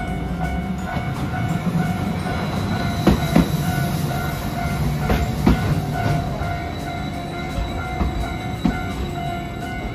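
A Hiroden Green Mover low-floor tram rumbles past close by, its wheels clicking in pairs over rail joints several times. Under it, the level crossing's warning bell rings on steadily in a repeating pattern.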